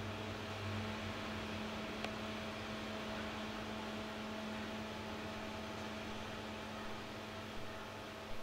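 A steady low hum with a light hiss underneath, and one light click about two seconds in.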